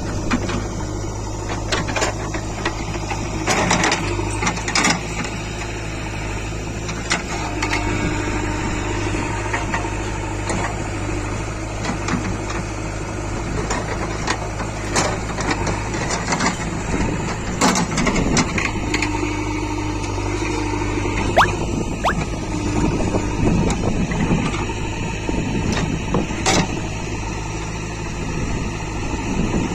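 JCB backhoe loader's diesel engine running steadily under work, with scattered knocks and clanks.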